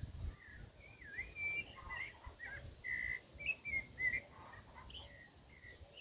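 Rufous-bellied thrush singing a run of short whistled, warbling phrases, one after another.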